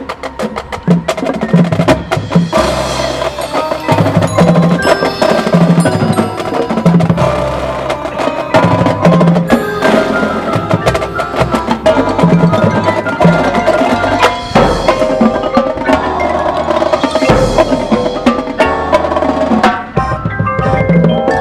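Marching band playing its field show, with drumline and mallet percussion prominent; the music comes in suddenly and loudly at the start after a quiet stretch.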